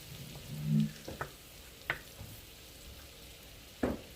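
Minced garlic sizzling gently in melted butter in a wok, a faint steady hiss, with a few sharp clicks of a utensil knocking against the wok as it is stirred.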